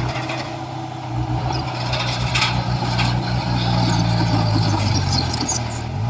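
Heavy diesel engine of earthmoving machinery running steadily, its pitch dipping and then rising again near the end, with faint high squeaks over it in the second half.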